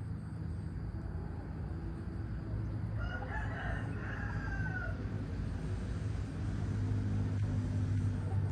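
A rooster crowing once, a drawn-out call of about two seconds starting about three seconds in and falling at the end, over a steady low hum.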